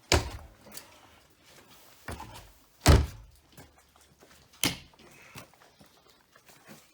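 Four heavy thumps and bangs, a few seconds apart, the loudest about three seconds in.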